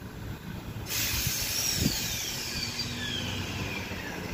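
Transperth electric multiple unit pulling out of the platform. A sudden hiss of air comes about a second in, then the whine of the electric traction drive, its tones sliding steadily downward as the train gathers speed.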